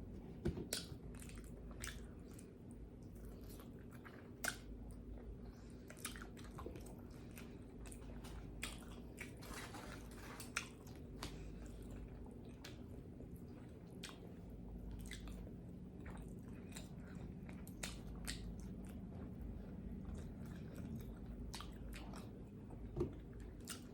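Faint close-miked chewing and mouth sounds of someone eating pizza, with irregular wet smacking clicks every second or so.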